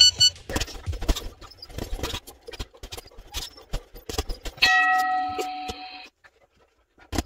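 Boxing gloves striking a double-end ball in quick, uneven taps and knocks for about four seconds. The punching then stops, and a held tone with several pitches sounds for about a second and a half.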